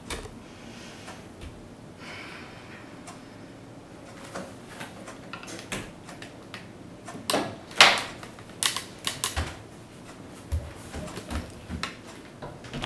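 Quiet room tone, then a scattering of irregular sharp clicks and knocks, thickest in a cluster around the middle.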